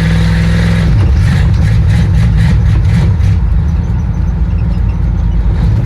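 A 1962 Chevy C10's small-block Chevy V8 running loudly and blipped a few times on the throttle, settling to a steadier idle in the second half.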